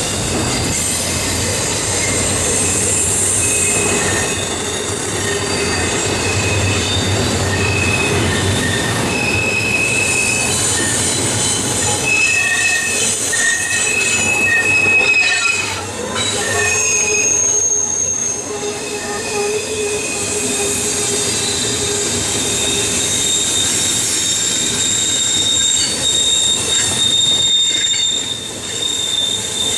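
Double-stack intermodal container well cars rolling past close by, their steel wheels squealing against the rail on the curve in shifting high-pitched tones that come and go over a steady rumble.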